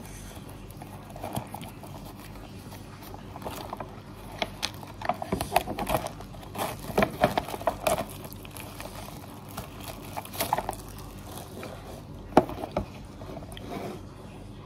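Plastic instant-noodle packet being handled: irregular bursts of crinkling and rustling, with one sharp click or tap near the end.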